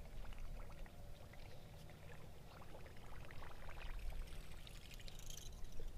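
Water lapping and trickling against the hull of a bass boat, with small scattered ticks over a steady low rumble and a short brighter splash of hiss about five seconds in.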